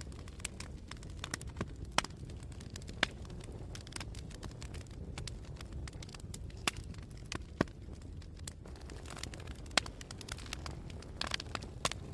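Wood fire burning in a fireplace: irregular crackles and sharp pops over a low steady rumble of the flames, with a quick cluster of pops near the end.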